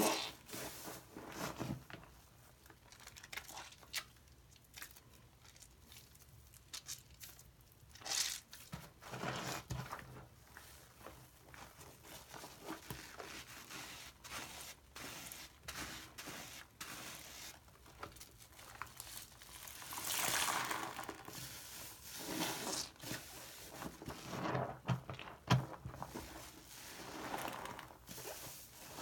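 A large bath sponge full of soap lather squeezed, wrung and rubbed by hand in a sink: wet squelching and crackling of foam in uneven squeezes, with the loudest squeezes in the last third.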